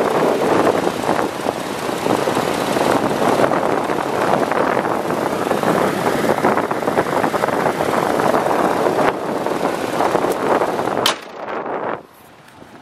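Wind buffeting the microphone: a loud, gusty rush with no steady tone. It is cut off by a sharp click near the end, leaving a much quieter background.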